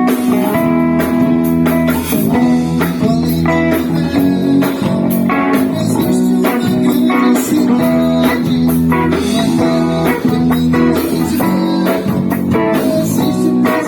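Band music: drum kit keeping a steady beat under electric guitar, bass guitar and keyboard.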